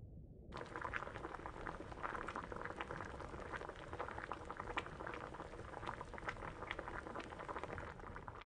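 Water boiling hard in a pot: a dense bubbling with many small pops, over a low rumble. It starts suddenly about half a second in and cuts off abruptly just before the end.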